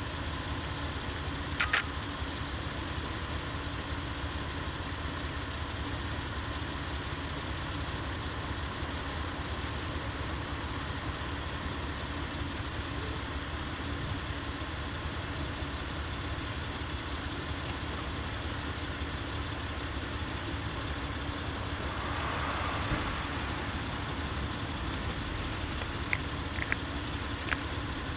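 Diesel railcar standing with its engine idling, a steady low hum. A single sharp click comes about two seconds in, a short swell of hiss comes about three quarters of the way through, and a few light clicks follow near the end.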